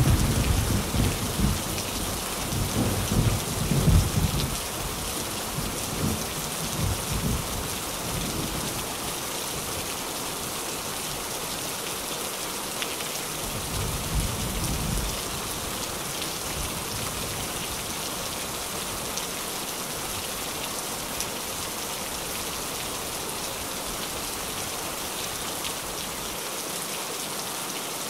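Steady rain drumming on a tin roof, with rolling thunder rumbling through the first eight seconds or so and a shorter rumble about fourteen seconds in.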